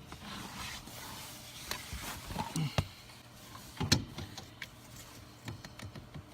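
Hands working test-meter leads and probes against a blower motor wiring connector: scattered clicks, scrapes and small knocks, with the loudest sharp knock about four seconds in.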